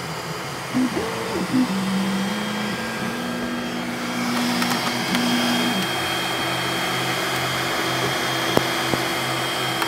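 A 3D printer running mid-print: a steady fan whir, with the stepper motors whining in a few steady pitches that jump from one to another as the print head moves, dying away about halfway through.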